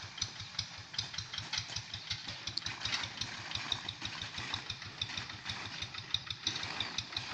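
Quick Boxer 1000 hand tractor's Kubota single-cylinder diesel engine running with a steady, rapid putter.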